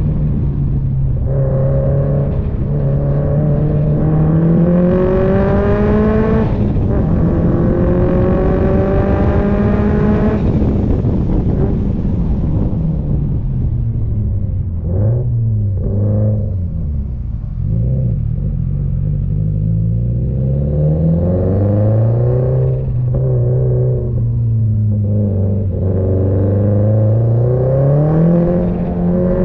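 Car engine and exhaust under hard driving: the note climbs steeply through the revs, breaks at a gear change about six seconds in and climbs again, then drops and rises repeatedly as the car slows and pulls away through the bends.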